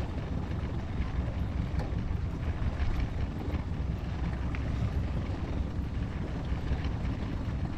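Boat moving at trolling speed: the outboard motor runs with a steady low rumble, mixed with wind on the microphone and water moving along the hull.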